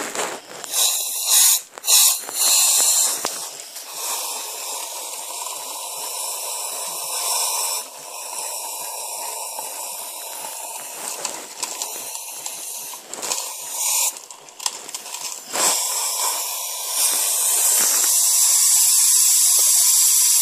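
Upside-down air duster can spraying its liquid propellant into a plastic cup of water to freeze it: loud hissing in repeated bursts, then a longer steady hiss near the end.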